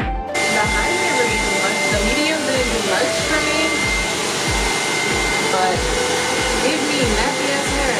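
Hot-air blow dryer brush running: a steady rushing hiss with a high whine, starting abruptly just after the start, over background music with a steady beat.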